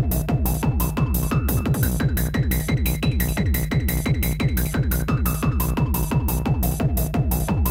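Techno pattern from a Korg Electribe groovebox: a fast, steady kick drum with a falling pitch, hi-hats between the kicks, and held synth notes, stopping abruptly near the end.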